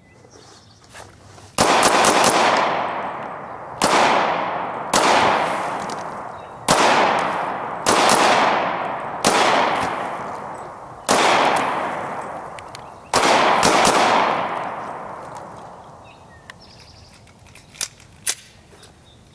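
Glock 23 pistol in .40 S&W fired in a string of about eight shots, some in quick pairs, each shot a sharp crack with a long echoing decay, after a draw from a shoulder holster. Two faint clicks follow near the end.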